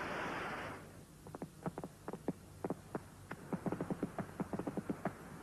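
Fireworks going off: a hissing rush that stops under a second in, then an irregular string of sharp pops and cracks, several a second.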